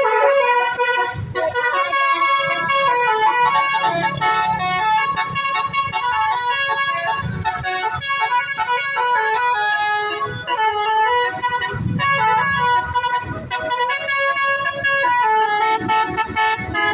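Indonesian bus 'basuri telolet' multi-tone air horns playing a stepping melody, one tune running into the next without pause, loud.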